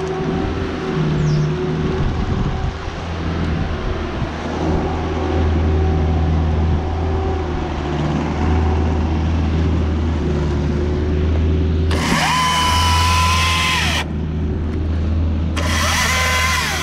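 Husqvarna T536LIXP battery chainsaw whining up to speed twice, about twelve seconds in and again near the end, each time a high whine that rises, holds steady, then drops away. Under it, a steady low engine drone runs throughout.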